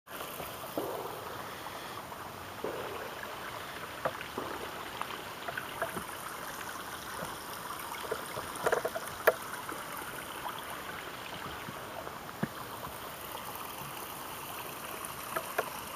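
Water running and trickling in a steady hiss, with scattered small clicks and crackles, a few sharper ones about nine seconds in.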